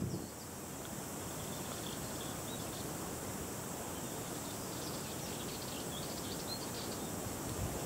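Quiet outdoor ambience: a steady even hiss with scattered short, faint high chirps.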